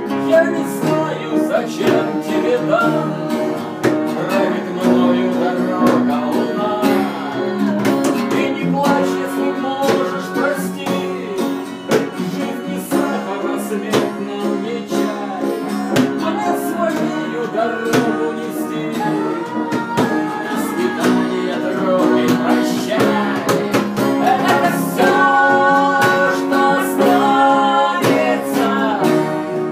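Acoustic guitar strumming with an upright piano, playing an instrumental passage of a song.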